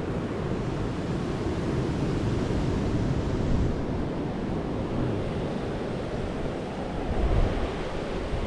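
Sea waves washing on the shore in a steady hiss, with wind buffeting the microphone in gusts, strongest near the end.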